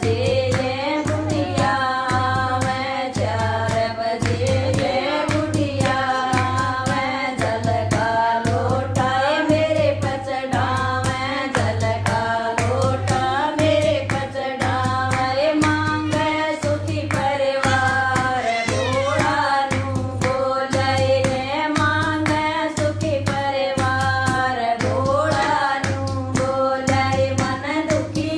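Women singing a Haryanvi bhajan, a Hindu devotional song, in Hindi, clapping their hands in a steady rhythm.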